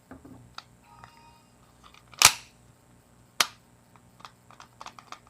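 Metallic clicks and knocks of a Colt Defender .45 ACP pistol and its magazine being handled: a loud click a little over two seconds in, another sharp one about a second later, then a run of small clicks.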